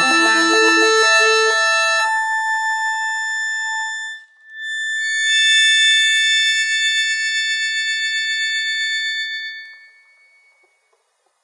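Accordion playing the last bars of a piece: a passage of changing notes, a short break, then a final high chord held for about five seconds before it stops.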